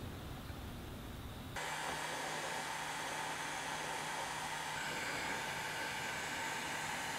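Hot-air heat gun switched on about one and a half seconds in, then blowing steadily with a faint hum, used to shrink the red heat-shrink sleeve on the wires of a toggle switch.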